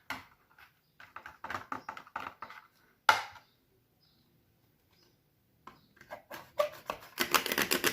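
Slime being squeezed and worked in the hands, giving runs of quick clicking pops. There is one louder pop about three seconds in, a pause, and then a faster run of clicks near the end.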